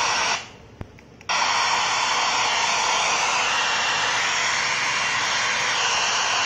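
FM radio static hissing steadily from the built-in speaker of a WS858 wireless karaoke microphone, which is tuned to no station. The hiss cuts out for under a second near the start, with a single click in the gap, then comes back.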